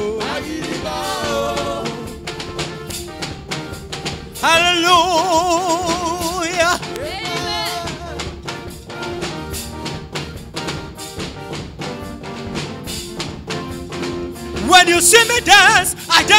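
Live gospel praise music: singers on microphones over an accompaniment with a steady beat. A voice holds long wavering notes about four seconds in and again near the end.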